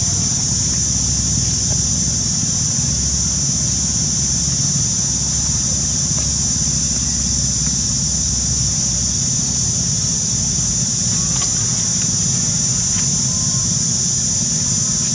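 Insect chorus in forest: a steady, unbroken high-pitched buzzing, over a low steady rumble.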